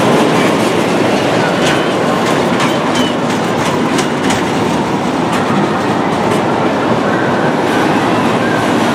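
Mini roller coaster train running along its tubular steel track: a steady loud rumble of wheels, with a handful of sharp clicks and clacks in the middle stretch.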